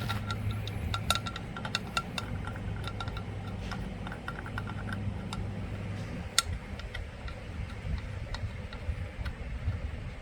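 Light metallic clicks and clinks of bolts and hand tools while the engine's side case cover is bolted back on, one sharper click about six and a half seconds in. A steady low hum runs underneath and stops about six seconds in.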